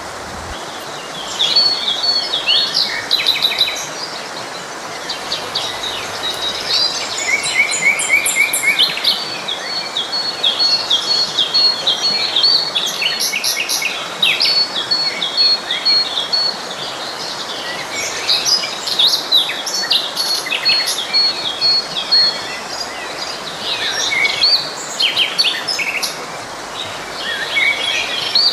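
Several songbirds singing and chirping over the steady rush of a flowing stream, with a few long runs of rapid, evenly repeated high notes.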